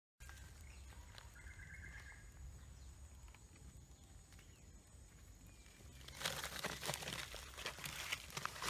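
Faint outdoor sound with a steady low rumble. A short high chirp comes about a second in, then dense rustling and scratching starts about six seconds in.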